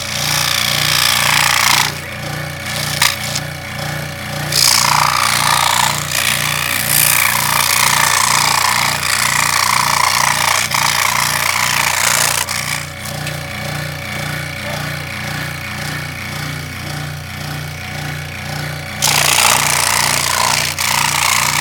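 Delta scroll saw running steadily, with louder rasping stretches as its blade cuts through cardboard: at the start, again from about four to twelve seconds in, and once more near the end.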